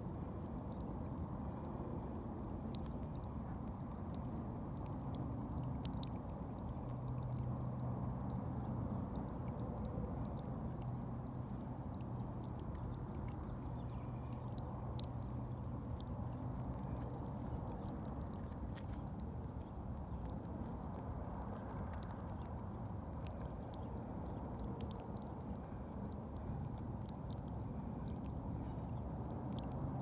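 A thin jet of rainwater spurting from a garden distribution pipe and splashing steadily onto wet soil at the base of a tomato plant, with a low hum that comes and goes underneath.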